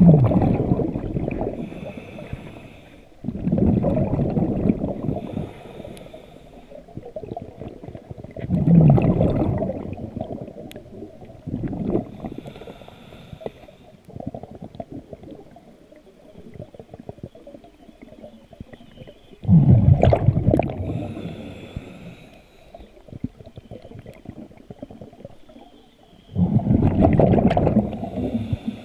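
Scuba diver's exhaled breath bubbling out of the regulator, heard underwater: five rumbling bursts of about two seconds each, spaced several seconds apart, with fainter sound between them.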